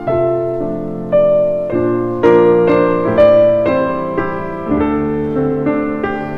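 Background piano music: a slow melody of struck notes over held lower notes, a new note coming about every half second.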